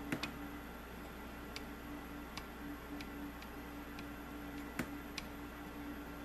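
Felt tip of a flux pen dabbing and tapping on the pads of an etched copper circuit board: about ten small, irregularly spaced clicks, the loudest nearly five seconds in, over a steady low hum.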